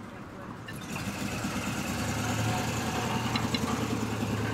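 A large vehicle's engine running with a steady low hum and throb, getting louder about a second in and then holding steady.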